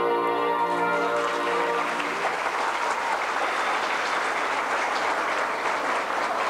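Recorded orchestral music ends on a held chord about two seconds in, and the audience breaks into applause that runs on steadily.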